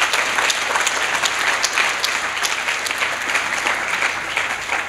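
Audience applauding, many hands clapping at once at a steady level.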